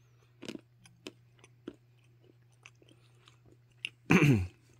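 Mouth chewing a bitten Ferrero Coffee Maestria chocolate, with soft scattered clicks and crunches from the dark chocolate shell. A short vocal exclamation comes near the end, over a faint steady low hum.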